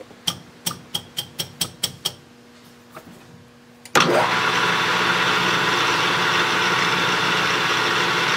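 A quick run of about eight small clicks, then about four seconds in a metal lathe's motor switches on and runs steadily as the part is reamed.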